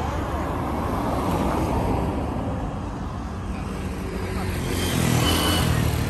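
A car driving along the road, a steady rush of tyre and engine noise that grows louder near the end.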